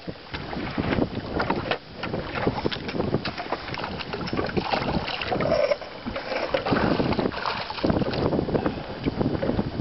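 Wind buffeting the microphone and water lapping against a small fishing boat, with irregular knocks and rustles throughout.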